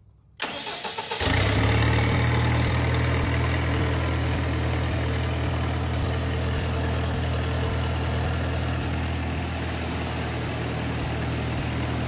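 Caterpillar diesel engine of an orchard frost-protection wind machine cranking on its starter for under a second, then catching about a second in and idling steadily.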